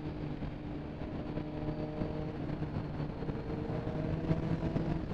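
Motorcycle engine running at a steady cruise, heard from a helmet-mounted camera, with a constant rush of wind and road noise over it.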